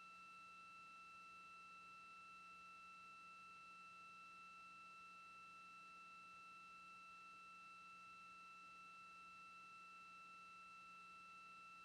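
Near silence: a faint, steady electronic whine of a few pure tones over a low hum, the idle line noise of the broadcast feed.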